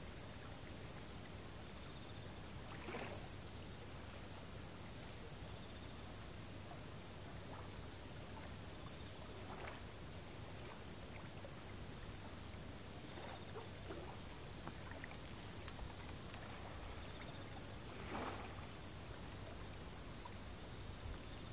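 Faint steady outdoor hiss of moving river water, with a few brief soft swishes spread through it and a thin steady high whine underneath.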